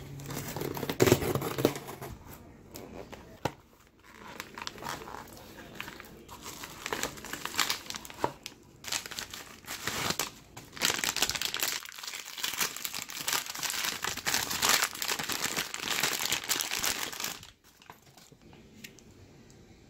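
Bubble-wrap and cardboard packaging crinkling and rustling as a battery pack is unwrapped by hand, with some tearing sounds; the crinkling stops shortly before the end.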